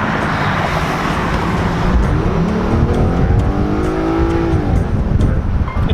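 Car engine revving hard as the car accelerates. A rush of noise in the first second or so, then the engine note climbs steadily for a couple of seconds and drops away about five seconds in.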